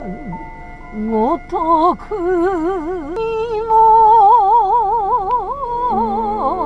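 Background music: a slow melody of held notes with a wide, wavering vibrato, several lines sounding together over steady drones.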